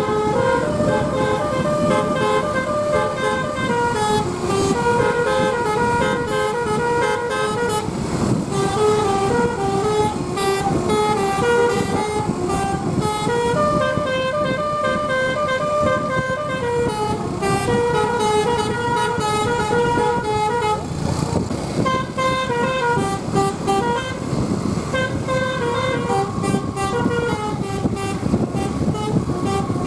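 Basuri multi-tone bus air horn (telolet horn) playing melodies continuously: short notes stepping up and down in repeating tune phrases, over the low rumble of the bus and road.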